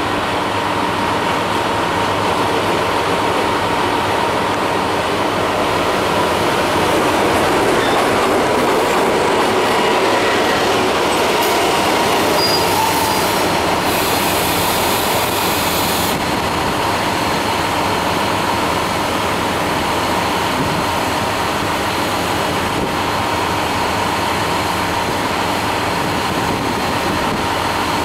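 JR Hokkaido KiHa 183 series diesel express train drawing into the platform and coming to a stand, with a thin steady squeal over the running noise, then its diesel engines idling. A hiss of about two seconds comes halfway through.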